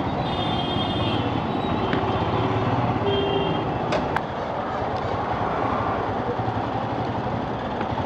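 Ride noise on a moving Royal Enfield Scram 411: its single-cylinder engine running under wind and tyre noise in traffic. Two short tones, like vehicle horns, sound about a third of a second in and again about three seconds in.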